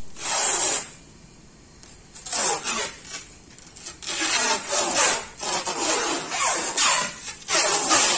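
Clear plastic stretch-wrap film being pulled off its roll and wound by hand around a bundle of WPC door frames, crackling and hissing in repeated pulls, with a lull of about a second near the start.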